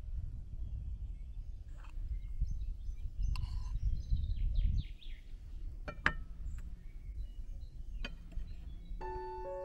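A few light clinks and scrapes of a metal spoon against a glass jar and ceramic bowl as thick sauce is spooned out, over a low outdoor rumble with faint bird chirps. Soft piano music starts near the end.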